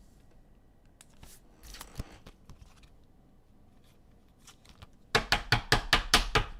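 Trading cards being handled on a table: a brief rustle about a second and a half in, then a quick run of about ten sharp clicks near the end.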